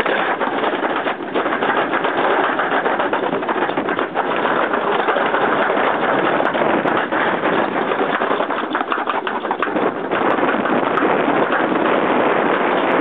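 Toboggan sled running fast down a metal chute: a steady, loud rolling noise of its wheels in the trough, mixed with rushing air.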